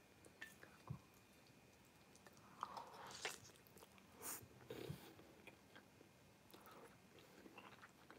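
Faint eating sounds: a few light clicks and bites as a mouthful of beef stir-fry noodles is taken, then soft chewing.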